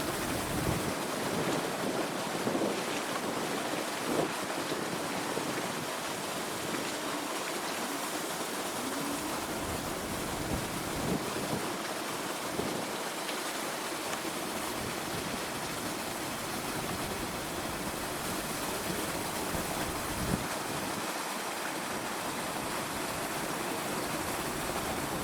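Steady rushing noise of running water, with a few faint short louder moments.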